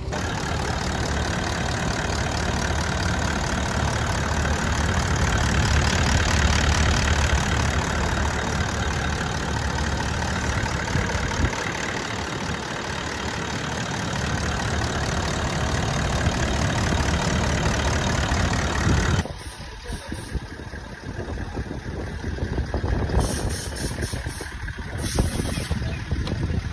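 Diesel car engine running steadily. About two-thirds of the way through the sound changes abruptly to a quieter, more uneven engine sound.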